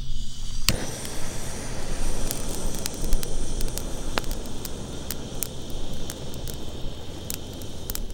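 Wood campfire burning: a steady hiss with scattered sharp crackles and pops, starting under a second in.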